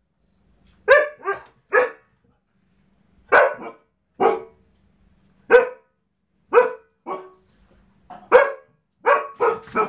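Husky barking, about ten short single barks spaced roughly a second apart, some in quick pairs, coming faster near the end.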